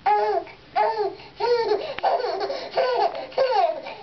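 A baby laughing while being tickled on the belly: a run of short, pitched laughs, each rising and falling.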